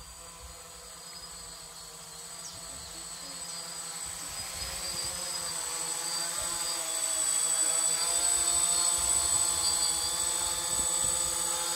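Quadcopter drone's propellers buzzing, a steady multi-toned whine that grows louder over the first several seconds as the drone flies in and comes down to land close by, then holds.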